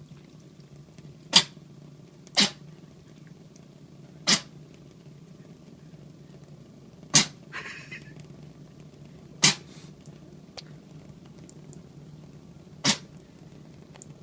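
Norwegian Forest Cat sneezing six times in a row, each sneeze short and sharp, one to three seconds apart: water has got up its nose.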